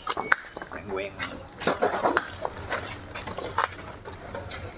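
People talking in the background while luggage is handled at a car's open boot, with scattered knocks and bumps of bags going in.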